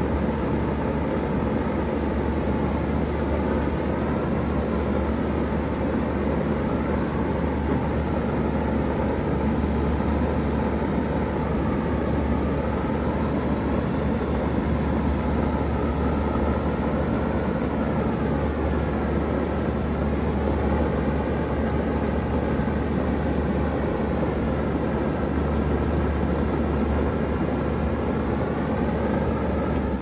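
2016 Bard 3-ton wall-hung heat pump running steadily in heat mode, its compressor and outdoor fan giving a constant low hum under a rush of air. Faint higher tones waver slowly up and down.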